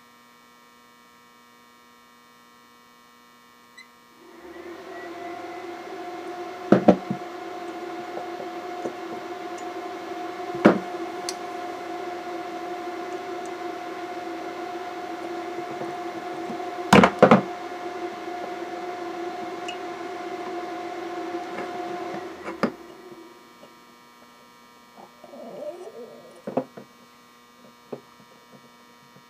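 A handheld electric tool held on transistor leads runs with a steady buzz. It switches on about four seconds in and cuts off about eighteen seconds later. A few sharp knocks fall while it runs.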